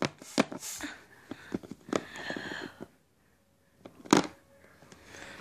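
Handling noise: scattered taps and clicks as hands move small plastic toy figures and touch the phone recording them. There is a short rustle about two seconds in and a louder knock about four seconds in.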